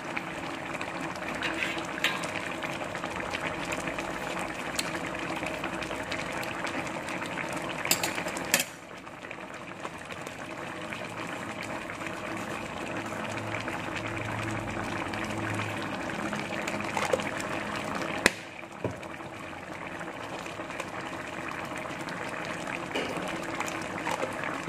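Spiced fish stew bubbling steadily at a simmer in an open wok, as its liquid is cooked down. There are a couple of sharp clicks, about 8 and 18 seconds in.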